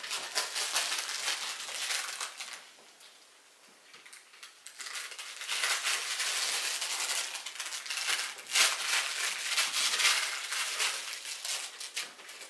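Crinkling and rustling of a fried-egg plush puppy toy as it is shaken and rubbed on the pen floor, in spells with a quieter gap about three seconds in.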